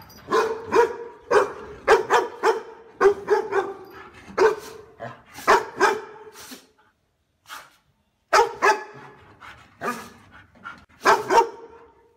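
Dog barking in quick runs of short barks, stopping for about a second and a half midway before barking again.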